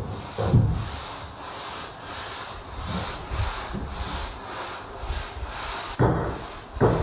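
Rhythmic rubbing on wood, nearly three strokes a second, like sandpaper worked back and forth over a freshly carved wooden panel, with two heavier knocks near the end.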